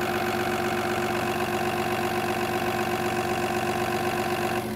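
Cummins B6.7 inline-six turbo diesel, with common-rail injection and a variable-geometry turbocharger, running steadily at a raised idle of about 1,000 RPM. Several faults have been inserted electronically, including a misfire.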